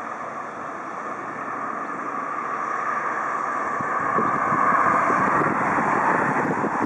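Boeing 777-300ER's GE90 turbofan engines running at low power as the airliner taxis, a steady jet hiss and whine growing louder as it comes closer. From about four seconds in, wind gusts buffet the microphone.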